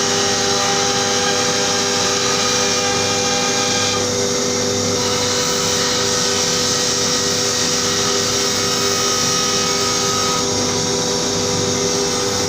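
CNC router spindle running steadily, its bit cutting plywood: a constant whine over a hiss, the tone shifting slightly about four seconds in and again near ten seconds.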